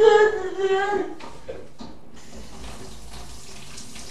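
Kitchen tap running into a sink: a steady rush of water that sets in about a second in, after a brief high voice.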